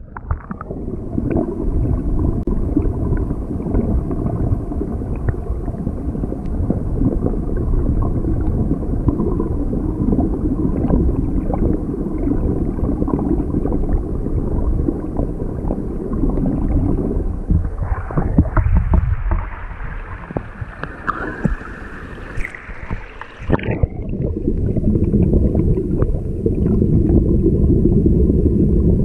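Stream water heard with the microphone underwater: a muffled, low rushing and gurgling of the current swirling into a small whirlpool. About two-thirds through, the sound drops in level and turns thinner and brighter for several seconds, then the low rush returns.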